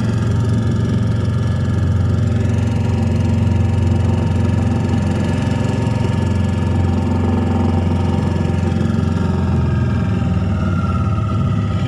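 An engine running steadily, a loud, even drone with no revving.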